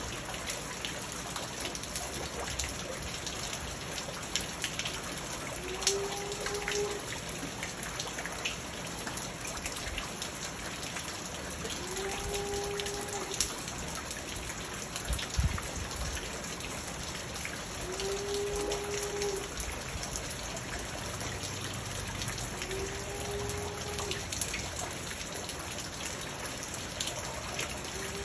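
Steady rain pattering on a garden fish pond and on the plants around it, with scattered drip ticks. Five times, about every five to six seconds, a short low tone sounds over the rain.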